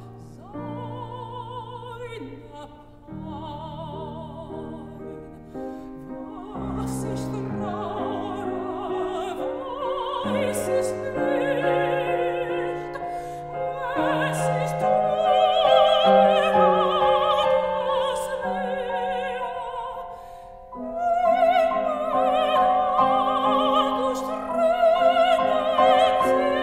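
Soprano singing a German art song with grand piano accompaniment, her voice carrying a wide vibrato over the piano's held chords. She grows louder through the middle, eases off briefly around twenty seconds, then comes back in with a loud high phrase.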